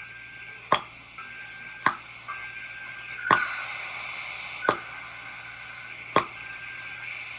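Tongue clicks: the tongue is sucked up against the palate and snapped down, as in the "horse" articulation exercise that imitates clopping hooves. There are five sharp single clicks, roughly one every second and a half.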